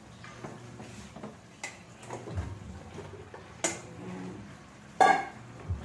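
Cubes of squash tipped from a stainless steel bowl into a cooking pot, with scattered taps and knocks and a loud ringing metal clink about five seconds in, over a low steady hum.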